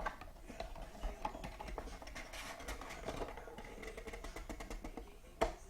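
Faint radio music in a small room, under small clicks and rustles of handling; the sharpest click comes near the end.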